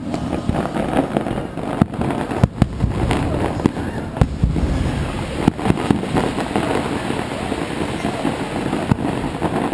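Fireworks display: irregular sharp bangs and crackles, a dozen or more, over a continuous low rumble of shell bursts.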